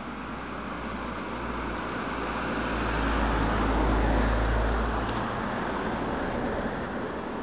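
A vehicle passing close by: its noise builds to a peak about four seconds in, with a deep hum that cuts off suddenly about five seconds in, then eases.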